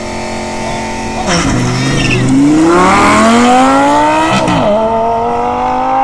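Sports car engine idling, then launching hard: the pitch dips as it pulls away about a second in, climbs steeply, drops sharply at an upshift about four and a half seconds in, and climbs again.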